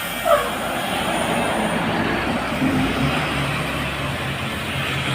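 Tour bus passing close by: a rush of road and engine noise, with the low drone of its engine growing stronger over the second half. A brief high squeak falling in pitch sounds about a third of a second in.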